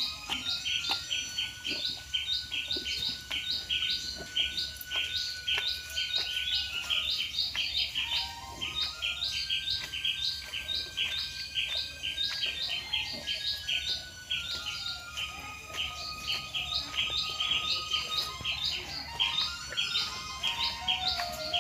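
Dense, rapid bird chirping: many short high calls repeating evenly without a break. Underneath, a faint melody of slow held notes steps up and down.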